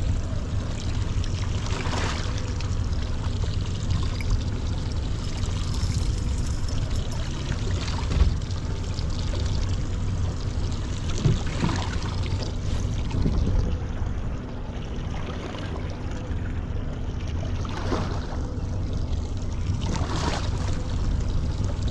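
Water sloshing and splashing against a small boat's hull on the open ocean, with a steady low hum underneath and a single sharp knock about eight seconds in.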